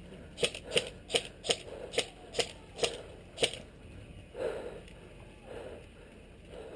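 An airsoft gun firing about eight sharp shots in quick semi-automatic succession, roughly two to three a second, followed by a few soft muffled thumps.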